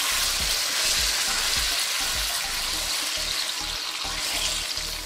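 Hot oil sizzling and spitting around water and sugar in an aluminium pot while a slotted spoon stirs it; the hiss eases off slowly as the water boils away into a syrup.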